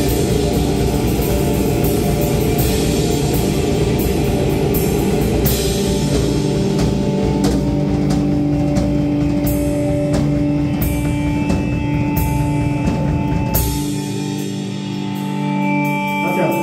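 Rock band playing live in a heavy metal style: distorted guitars, bass and drum kit with repeated cymbal crashes. About 14 seconds in, the bass and drums drop out, leaving held guitar notes ringing.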